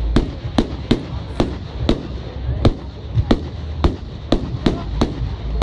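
Fireworks bursting in a steady run of sharp bangs, about two a second, over a low rumble.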